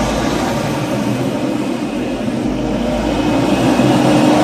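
A big rig's diesel engine is droning close alongside over heavy traffic and road noise. It has a steady low hum that grows somewhat louder toward the end.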